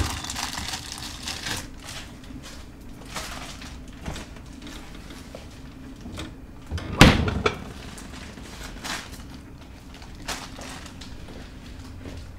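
Rummaging and handling sounds in a dark kitchen: rustling and light clicks and knocks over a steady low hum. One loud thump comes about seven seconds in, like a door or cupboard shutting.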